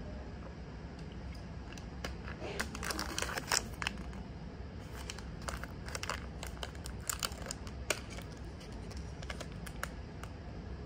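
A small plastic snack packet crinkling and tearing as it is pulled open by hand, in quick irregular crackles that are busiest about two to four seconds in and then come more sparsely.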